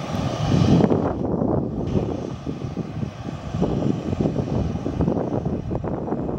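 Airliner engines running, a loud, unsteady rumble that swells and brightens during the first second.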